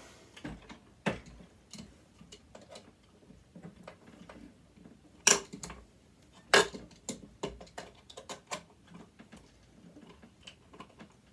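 Small irregular metal clicks and taps of a screwdriver and loose parts while a mechanism is worked apart by hand. Two sharp, louder clicks come a little past the middle, about a second apart.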